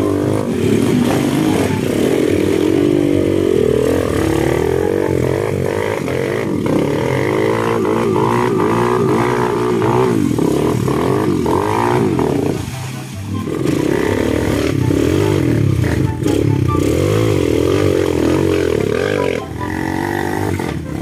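Trail motorcycle engine revving up and down as the rider works the throttle, easing off briefly a little past halfway.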